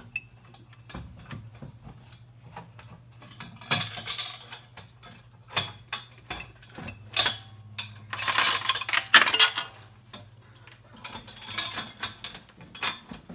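Scattered metal clinks, ticks and rattles of engine-install work, with a louder, longer scraping rattle about eight seconds in and a steady low hum underneath.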